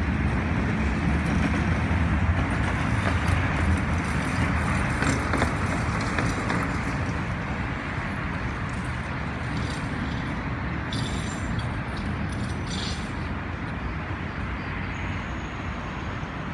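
Steady city traffic rumble, easing slightly about halfway through.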